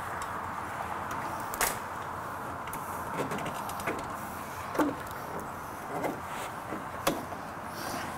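A few sharp metallic clicks and light knocks from hand work on a car's front suspension during a shock absorber install, over a steady background hiss.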